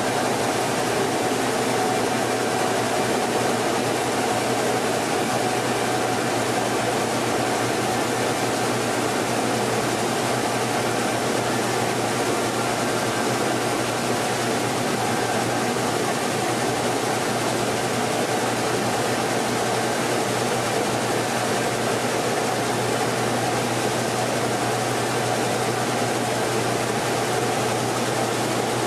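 Rice mill machinery running: a steady mechanical hum with an even hiss over it, unchanging throughout.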